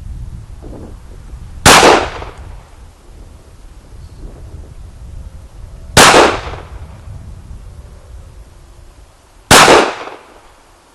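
Three pistol shots from a 9mm Glock 19 Gen 4, fired slowly and spaced about four seconds apart, each a sharp crack with a brief ring-out.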